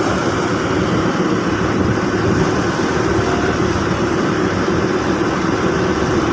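Fishing boat's engine running steadily under way, with water rushing and splashing along the hull in a rough sea.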